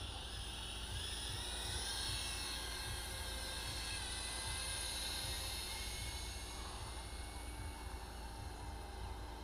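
BetaFPV Beta75X whoop quadcopter's motors and propellers whining, the pitch rising and falling as the throttle changes in flight.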